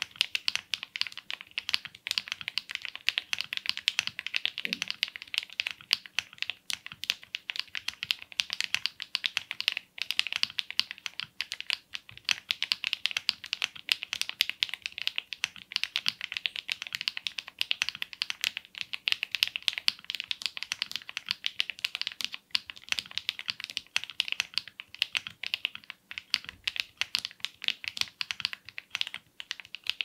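Continuous typing on a Zoom75 mechanical keyboard with stock factory-lubed HMX Swift linear switches, a polycarbonate plate, case foam only, lubed stabilisers and MW Calico keycaps. It makes a dense, rapid run of keystrokes with the signature HMX clackiness and somewhat deeper thocks than usual.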